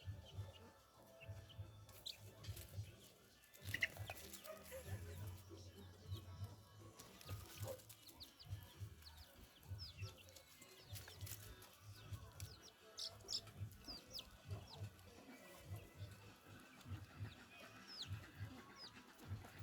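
Faint, short, low animal grunts repeating irregularly, one to three a second, with a few brief high squeaks.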